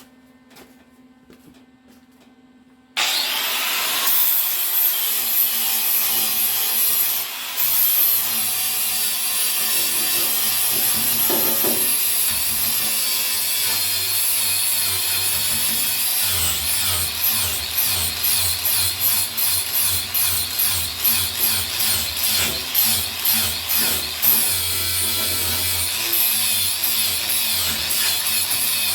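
A power tool starts abruptly about three seconds in and runs on loud and continuous, with a regular pulsing in the second half as it is worked back and forth.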